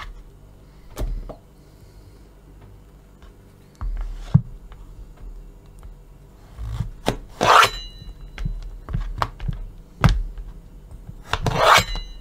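Kitchen knife slicing lengthwise through a peeled zucchini on a plastic cutting board: a few sharp taps of the blade on the board and two longer scraping strokes, the second near the end.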